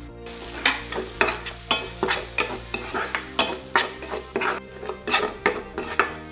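A metal spoon stirring and scraping frying onions and spice powder around a stainless steel pan, clacking against the pan about three times a second, over the sizzle of the oil.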